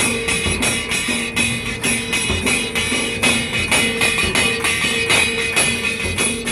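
Dhol drums played in a fast, steady beat, with ringing metal percussion jingling along and a repeating lower melodic line.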